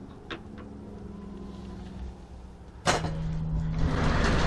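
A light knock from the chicken coop's plywood lid as it is closed. About three seconds in, the sound jumps to a delivery box truck's engine running steadily, a low hum under a broad rushing noise.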